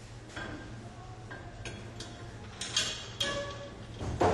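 Metal parts of an on-car brake disc lathe clinking and knocking as a C-shaped fitting is handled and set against the wheel hub: several short, sharp clinks, then a louder knock near the end, over a steady low hum.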